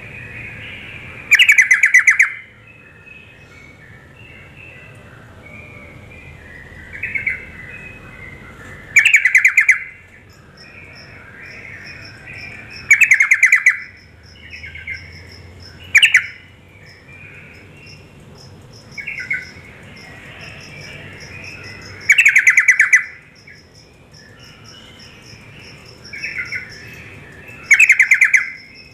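Yellow-vented bulbul (trucuk) calling: six loud, bubbly chattering bursts of about a second each, a few seconds apart, with softer chatter between them. A faint steady high-pitched tone runs under the calls from about a third of the way in.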